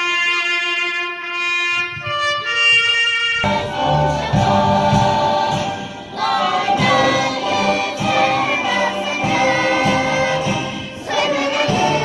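A song sung by a choir over an instrumental backing. The first few seconds are long held notes, and fuller music with a bass line comes in about three and a half seconds in.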